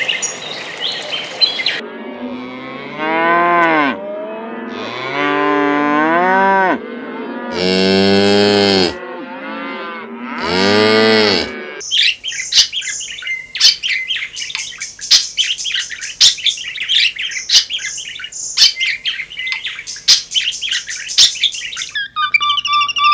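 Cattle mooing: four long moos one after another, each rising and falling in pitch, after a moment of bird chirping. Then about ten seconds of rapid, high-pitched chattering bird calls with sharp clicks.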